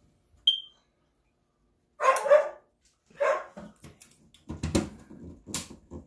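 A smoke alarm gives one short, high chirp about half a second in. A dog then barks several times, and there are a few low knocks near the end as the detector is pressed back onto its mount.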